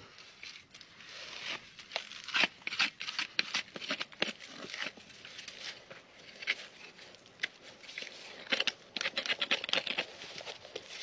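Gloved hands scraping and rubbing at a Shire horse's dirty, feathered hoof: irregular scratchy crackles and rustles, busiest from about two to five seconds in and again near the end.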